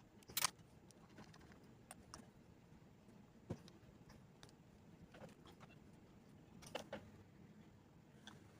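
A few faint, scattered clicks and taps of a small screwdriver and metal parts being handled as a screw is taken out of the SSD's mounting.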